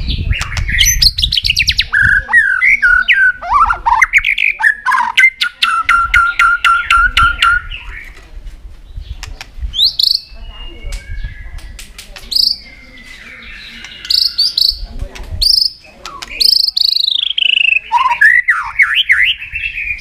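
White-rumped shama singing a varied run of whistled phrases that swoop up and down, with a quick series of repeated notes and sharp clicks between phrases.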